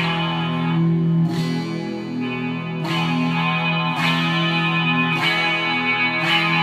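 KH-1 custom electric guitar on its back pickup, played through an amplifier: about six chords strummed a little over a second apart, each left ringing.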